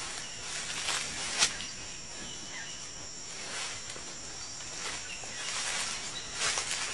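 A steady, high-pitched insect chorus in the woods, with a few footsteps crunching through the undergrowth about a second in and again near the end.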